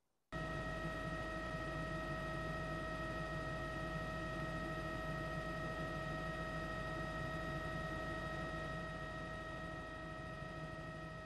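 A steady hum with a high, unchanging whine above it, cutting in suddenly just after the start and easing slightly near the end.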